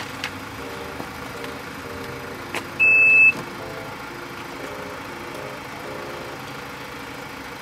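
A single loud electronic beep of about half a second, about three seconds in, from a Mazda SUV's power tailgate as it is set to close, over a steady background hum.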